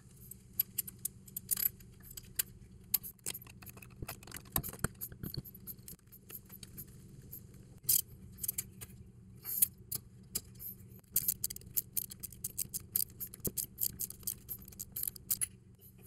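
Hand wrench on the bolts holding a rear CV axle to the differential flange: a run of quick metallic clicks and taps, crowding into rapid strings in the last few seconds, over a low steady hum.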